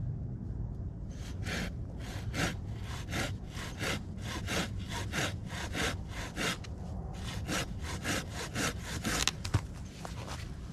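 Hand saw cutting through a soggy wooden stick in quick back-and-forth strokes, about three a second, stopping near the end.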